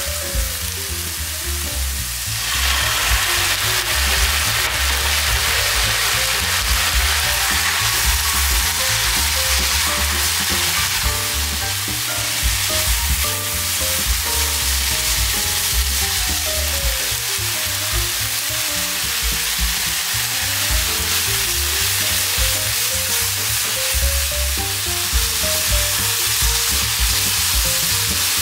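King oyster mushroom strips sizzling in hot oil in a nonstick frying pan as they are stir-fried and turned with a silicone spatula; the sizzle swells about two seconds in and then stays steady. Background music plays underneath.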